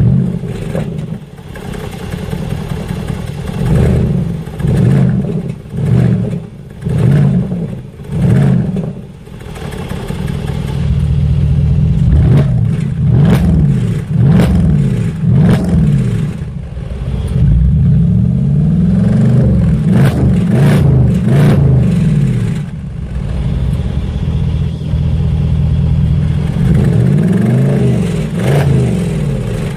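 Mercedes-AMG SLK55 (R172) 5.5-litre V8 through aftermarket downpipes, revved in place in comfort and then sport exhaust mode. First comes a run of short throttle blips, then longer revs that rise and fall, with sharp cracks between some of them.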